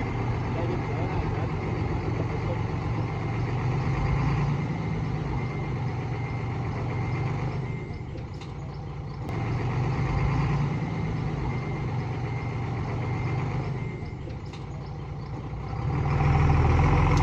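Heavy diesel engine of earthmoving machinery running continuously. It grows louder and then eases off every few seconds as the throttle or load changes.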